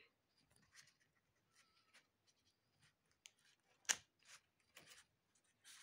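Faint rustling of a sheet of paper being handled and lifted, in short scattered scrapes, with one sharper click about four seconds in.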